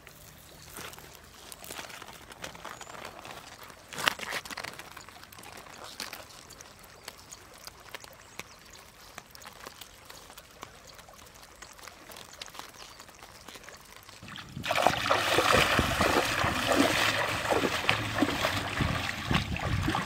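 Faint scattered clicks and rustles, then, about three-quarters of the way through, river water suddenly starts sloshing and splashing loudly around a hooped funnel net trap held in the shallows.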